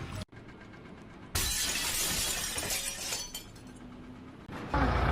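A sudden shattering crash, about a second in, that goes on for about two seconds before dying away.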